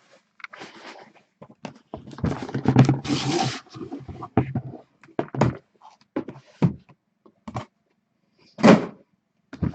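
Handling noises on a table: irregular knocks and thunks with a stretch of rustling about two seconds in, and one short, louder sound near the end.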